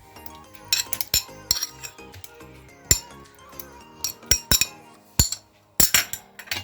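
Irregular sharp clinks and taps of a kitchen utensil against a container as boiled garlic cloves are added to the mix, over soft background music.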